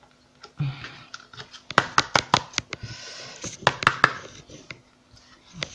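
Glittery cardstock and craft pieces being handled on a cutting mat: rustling and scraping, with two quick runs of light clicks and taps about two and four seconds in.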